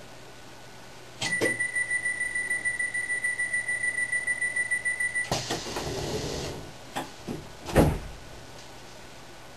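Passenger train's door-closing warning: a rapidly pulsing high beep for about four seconds, then a hiss as the sliding doors close and a couple of thuds as they shut, the second one the loudest.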